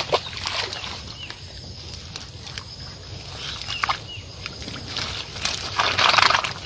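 Live fish flapping and thrashing in a cast net on wet grass, with rustling of the net mesh and grass and scattered slaps and small splashes as they are picked out by hand. A longer, louder bout of thrashing and rustling comes near the end.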